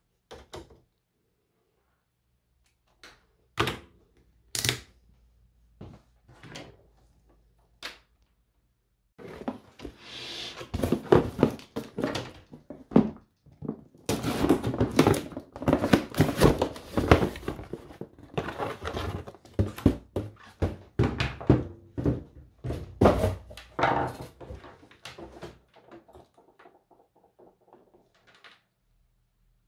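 Handling noise from work inside an opened Siemens EQ.5 espresso machine. A few separate clicks come over the first eight seconds. Then there is a long stretch of dense knocking, clicking and rattling of plastic parts and a screwdriver as the water pump is worked loose, thinning out near the end.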